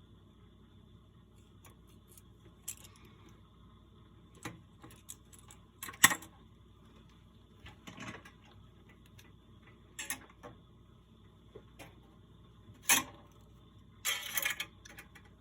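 Scattered sharp clicks and taps of small metal tools and parts being handled on a workbench during circuit-board soldering, the loudest about six seconds in and again near the end, followed by a quick rattling cluster. A faint steady high whine runs underneath.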